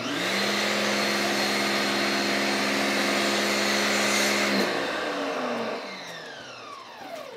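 Kärcher K1700 Cube electric pressure washer running under load with a steady motor whine and spray hiss, then about four and a half seconds in the trigger is let go and the motor winds down, its pitch falling away.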